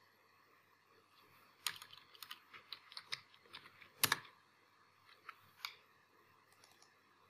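Typing on a computer keyboard: a quick run of key clicks starting between one and two seconds in, with one louder keystroke about four seconds in, then two single clicks.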